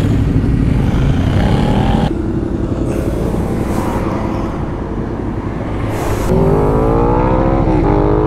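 Ducati Multistrada motorcycle engine pulling away and accelerating, its pitch rising through the revs, with a brief dip at a gear change near the end before it climbs again.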